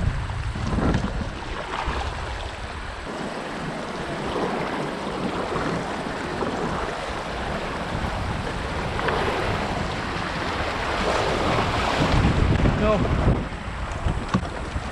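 River water rushing through rapids, with wind buffeting the microphone in low gusts near the start and again near the end.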